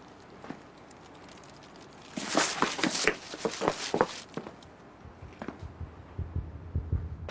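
Quick footsteps on pavement with clothing rustling for about two seconds, as someone strides in close. Near the end a low, even thumping like a heartbeat starts up.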